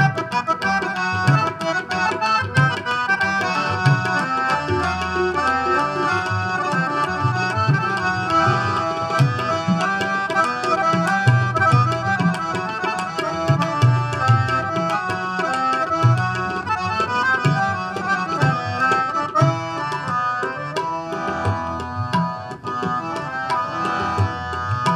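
Harmoniums playing the melody over a steady tabla rhythm, with deep bass drum strokes. This is an instrumental passage of Sikh kirtan between sung verses, with no voice.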